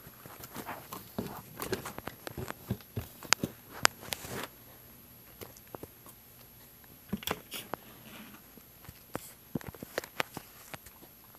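Irregular clicks, taps and rustles of a handheld camera being handled and moved about. They are thick at first, die down for a couple of seconds midway, then pick up again.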